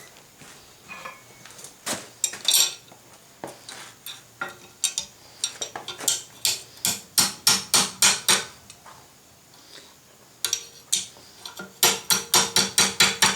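Blacksmith's hammer striking a small forged S hook on the anvil to straighten it: sharp metal-on-metal blows, scattered at first, then two quick runs of about four to five strikes a second in the middle and near the end.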